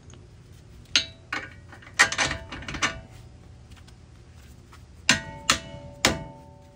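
Metal hand tools striking and clanking against the steel front suspension parts in a few short groups, several strikes leaving a brief metallic ring.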